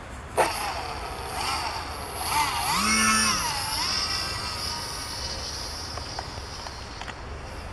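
Electric motor and propeller of a foam aerobatic RC plane under power: a sharp knock about half a second in, then a whine that rises and falls in pitch as the plane flies past low, loudest about three seconds in, before fading to a steadier, quieter whine as it climbs away.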